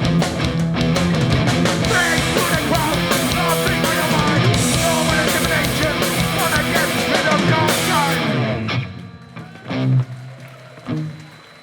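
Live hardcore punk band playing at full volume, with distorted electric guitars, bass, drums and shouted vocals. The song ends abruptly about eight and a half seconds in, followed by a few separate low notes played on their own.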